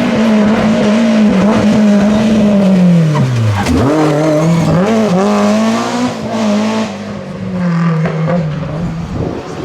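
Rally car engine running at high revs; its pitch falls steeply about three and a half seconds in, then rises again and holds.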